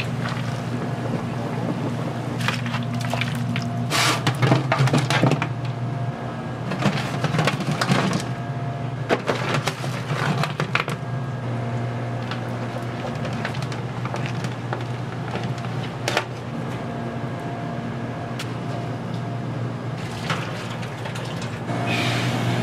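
Restaurant kitchen food-preparation sounds: scattered clatters and knocks in several clusters over a steady low hum.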